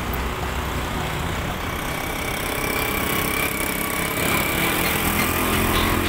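Road traffic, with the motorcycle engine of a cargo tricycle passing close and growing louder over the second half, over the noise of passing cars and motorbikes.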